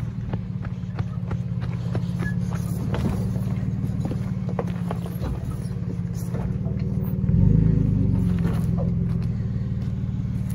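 Nissan Frontier pickup's engine running at crawling speed over a rocky, rooty trail, with scattered crunches and clicks from tyres and stones. About seven seconds in the engine rises and gets louder under throttle as the truck climbs past an obstacle, then settles back.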